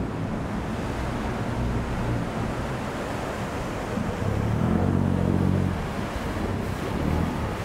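Canal passenger boat's engine running as the boat pulls in to the pier, over a steady wash of churning, splashing water. The engine hum swells about four seconds in, then eases.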